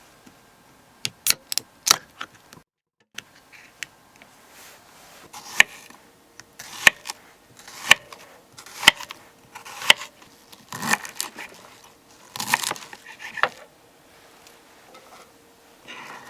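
Sharp knocks and clicks, then a steady run of hard strikes about once a second, like chopping or knocking on wood, with a faint steady tone beneath them.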